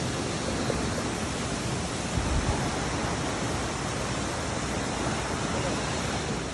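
Waterfall and mountain stream rushing over rocks: a steady, even rush of water.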